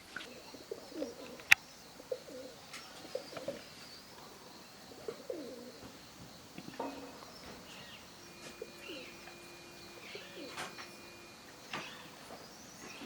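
A dove or pigeon cooing in a series of short low calls, with scattered sharp clicks and knocks, the loudest about a second and a half in.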